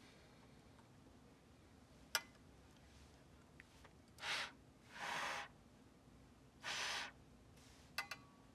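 A person breathing hard: three loud, noisy breaths about a second apart, after a single sharp click, with a few small clicks near the end.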